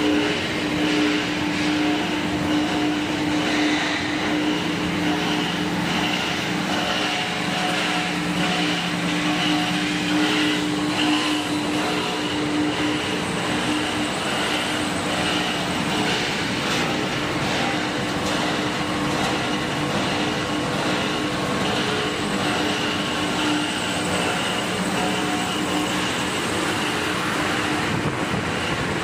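Small copper wire granulator running steadily while processing scrap cable: a constant mechanical drone with a steady hum, as the granules pass over the separator table.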